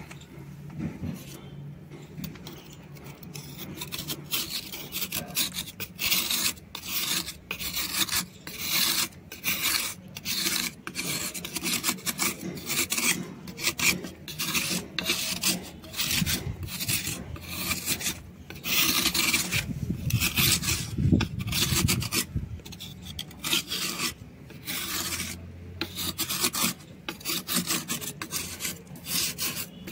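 A metal blade scraping the surface of a soft white shale stone slab in repeated strokes, with a dry rasp as flakes and powder peel away. The strokes are fainter for the first few seconds, then stronger.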